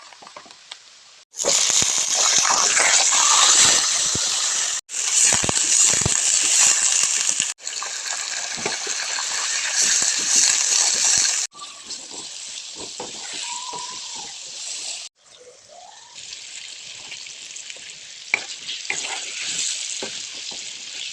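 Food frying in hot oil, a loud steady sizzle with scattered knocks of stirring, cutting off and starting again several times; loudest in the first ten seconds, quieter after.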